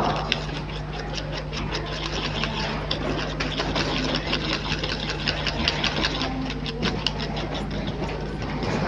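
A small motor-driven tool running steadily with a low hum and a rapid, even ticking.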